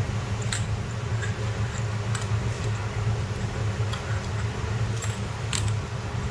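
Cast brass valve bodies and fittings clinking as they are handled and fitted by hand, with a few sharp metallic clinks about half a second, two seconds and five and a half seconds in, over a steady low hum.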